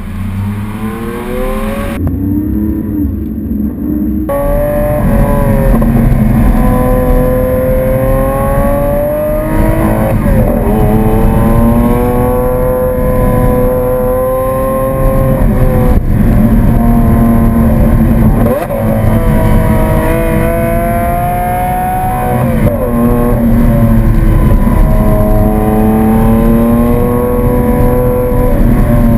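Lamborghini Aventador LP700-4's 6.5-litre V12 running hard and loud. Its pitch climbs steadily over several seconds and then drops back, about four or five times.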